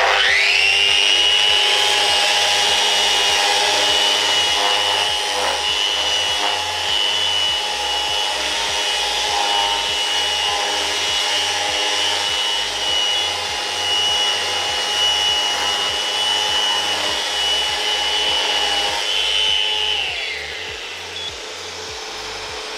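Festool Rotex RO 150 random-orbit sander spinning up with a rising whine, then running steadily as its 3M Cubitron disc sands acrylic paint off bare timber, with the Festool CT 26 dust extractor pulling air through the hose. About 20 seconds in, the sander runs down and the extractor keeps running more quietly.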